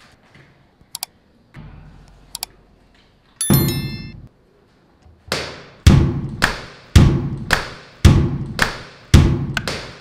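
Household objects played as percussion: a few scattered clicks and knocks, then a single bright ringing strike about three and a half seconds in. From about five seconds in, a steady beat of hard hits begins, about two a second.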